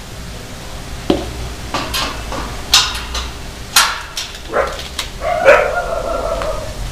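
Dogs in kennels barking several times in short, sharp bursts, then a drawn-out, steady whine or howl about five seconds in.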